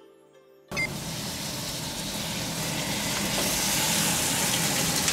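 Faint music ends. Under a second in, oil sizzling in a frying pan with garlic, ginger and Sichuan pepper starts suddenly and grows steadily louder.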